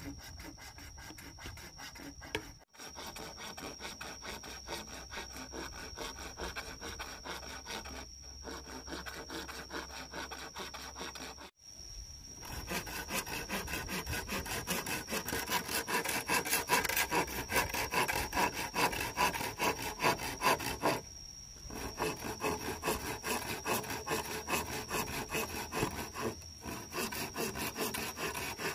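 A hand tool worked back and forth on wood or bamboo in fast, even strokes, sawing or rasping, with a few abrupt breaks where the sound cuts out and resumes; it grows louder a little before halfway through.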